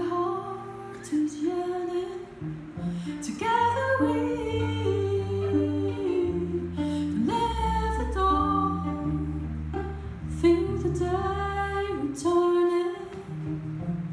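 Live duo: a woman singing over her plucked viola, with an electric bass guitar holding long low notes beneath.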